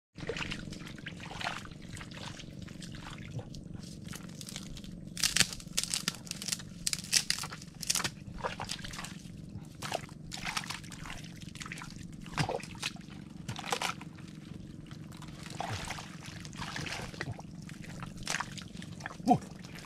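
Wet mangrove mud squelching and sloshing as hands and a stick dig into a mud crab's burrow, a string of short sucking slaps that comes thickest from about five to eight seconds in.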